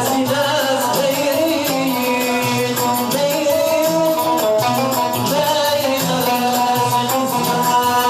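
Live Moroccan Amazigh folk music: a loutar (long-necked lute) playing a melody with a singing voice over a steady hand-percussion beat.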